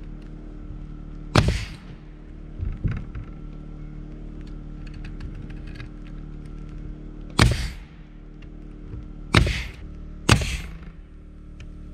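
Pneumatic framing nailer firing nails through OSB roof sheathing: four sharp shots at uneven intervals, two of them close together near the end, with fainter knocks between.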